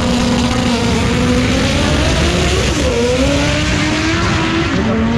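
Car engine at full throttle, accelerating hard down a drag strip. Its pitch climbs, drops at a gear shift a little under three seconds in, climbs again, and shifts once more near the end.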